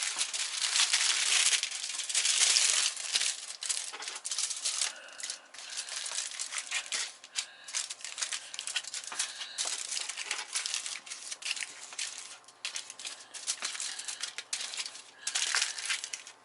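Aluminium foil crinkling and crackling as it is torn off, pressed and folded around a baking pan, loudest in the first few seconds and again near the end.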